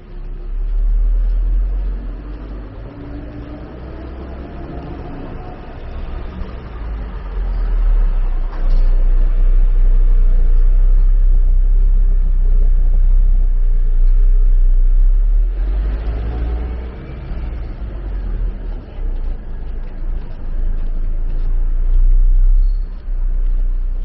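Road traffic on a city street: a heavy low rumble of vehicles passing close, louder through the middle.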